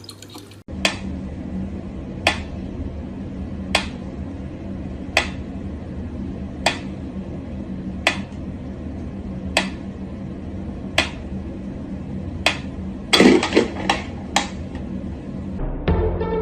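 Mechanical pendulum metronome ticking slowly, one sharp tick about every one and a half seconds, over a steady low hum. A quick cluster of louder knocks and clicks comes a little before the end.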